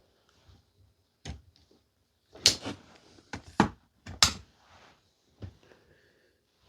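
A series of sharp knocks and clunks of tools and a chainsaw being handled on a workbench: about six, the loudest about two and a half and four seconds in.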